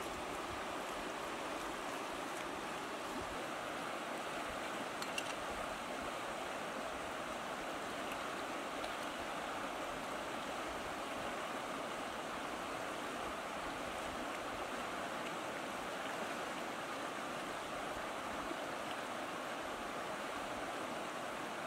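Steady rush of river water flowing and lapping at a stony bank, with a single sharp click about five seconds in.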